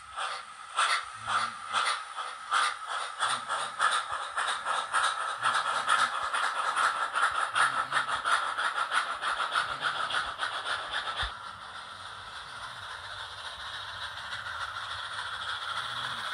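Sound decoder in an H0 model steam tank locomotive playing steam-engine chuffs through its small speaker, the chuffs coming faster and faster as the model accelerates. About eleven seconds in the chuffs stop and a steady hiss takes over, slowly growing louder, with light rattling of the model on the track.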